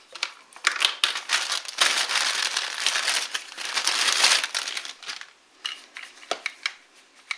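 Thin clear plastic bag crinkling and crackling as a pair of headphones is handled and pulled out of it. It is dense for about four seconds, then thins to a few scattered crackles and clicks.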